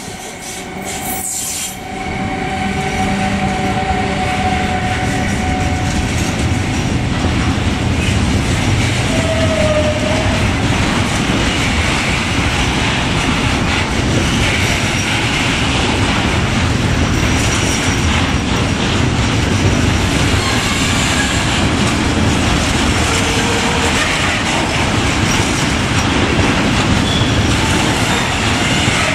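A freight train running past close by: a steady loud rumble and clatter of wagon wheels on the rails, swelling about two seconds in as the train reaches the microphone. Short squeals from the wheels come through a few times.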